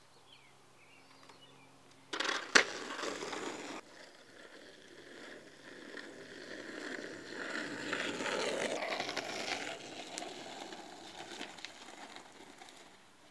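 Skateboard wheels rolling over asphalt, starting about two seconds in with a sharp clack as the board hits the ground, then a rough rolling noise that swells and fades.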